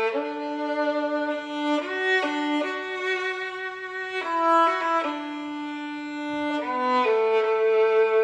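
Solo violin playing a slow, sweet melody of long held notes, often two notes bowed together.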